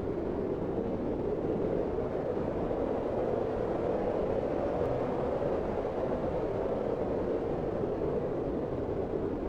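Blizzard wind blowing steadily, a dense low rush that swells slightly and eases without a break.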